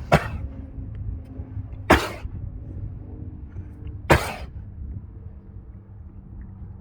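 A pet, likely a dog, coughing in three short, sharp hacks about two seconds apart.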